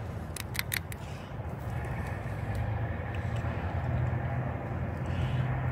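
A few light clicks about half a second in as the old, oil-fouled PCV valve is handled and shaken, over a steady low hum.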